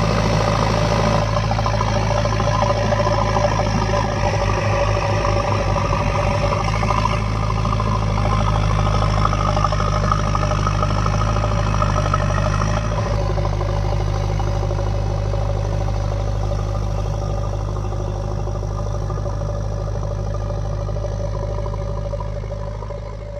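Diesel engine of a JCB 3DX backhoe loader running steadily with a deep, even drone, fading out near the end.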